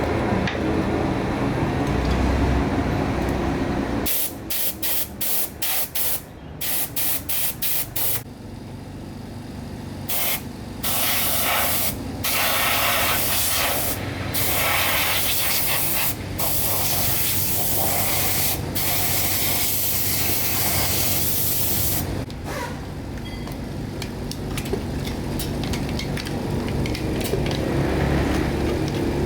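Hissing sprays, first in quick short bursts about two a second, then in longer blasts of a second to several seconds each. A low steady rumble runs under the first few seconds.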